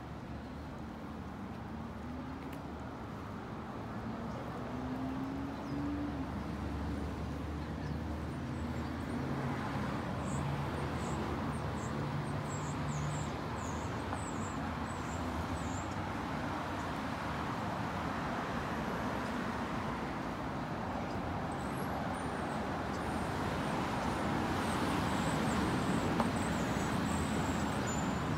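Street traffic: cars passing along a downtown street, with engine hum and tyre noise growing louder towards the end. Faint high chirps come and go.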